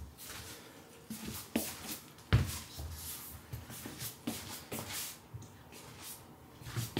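Scattered light taps and knocks in a small quiet room, with one louder thump about two seconds in.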